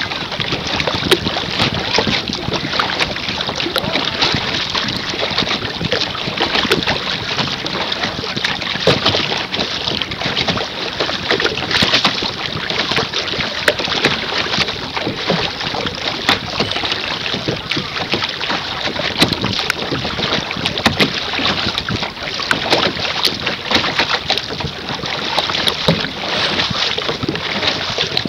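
Water splashing and slapping against the bow of a moving canoe on choppy water, a steady rush full of small crackles, with wind buffeting the microphone.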